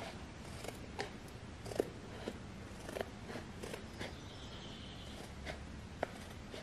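Metal scissors snipping through a thin plastic mirror sheet: a string of short, sharp, irregularly spaced snips and crackles.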